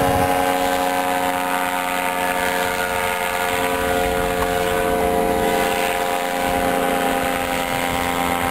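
Powered paraglider's (paramotor's) engine and propeller droning steadily overhead at an even pitch, with wind rumbling on the microphone.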